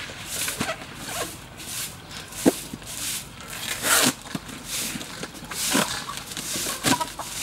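A broom sweeping bare dirt ground: short scraping swishes, about one stroke every half second. A few sharp knocks and scrapes come in between, the loudest about two and a half seconds in.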